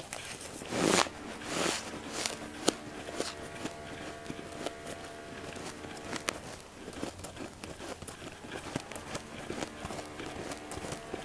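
Close-up chewing of powdery freezer frost: two crunchy bites about a second in, then a steady run of small crunches and crackles.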